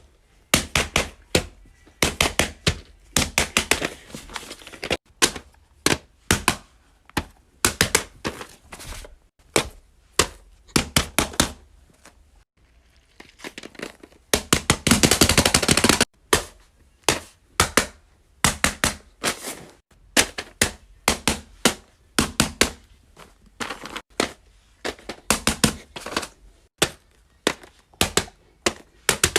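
Plastic fidget toys being clicked and popped by hand: runs of quick, sharp clicks in irregular bursts, with a fast unbroken run about halfway through.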